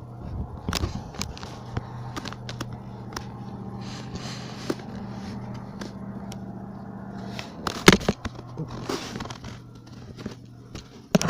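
A steady low hum made of two even tones, under scattered clicks and scrapes of a recording device being handled, with one loud knock about eight seconds in.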